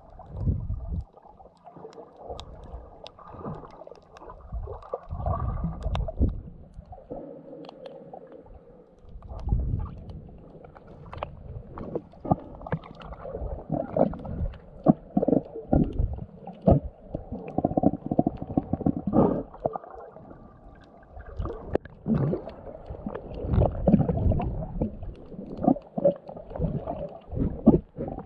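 Muffled underwater rumbling and gurgling of moving water, heard through a camera held below the surface, swelling and fading irregularly with frequent sharp little clicks.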